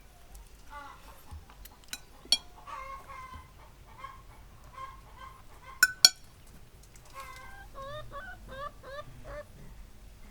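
Chickens clucking in a run of short calls, quickest near the end, with two pairs of sharp knocks about two and six seconds in that are the loudest sounds.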